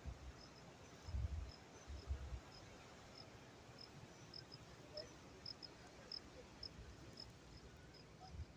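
Faint insect chirping: short, high chirps of one pitch, a couple a second, over a low even hiss, with a few low thumps in the first couple of seconds.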